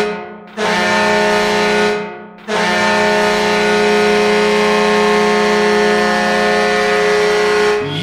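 Ice hockey arena goal horn blowing in three blasts: the first cuts off just after the start, a second lasts about a second and a half, then a long steady blast of about five seconds. The horn is a loud, steady tone with many overtones.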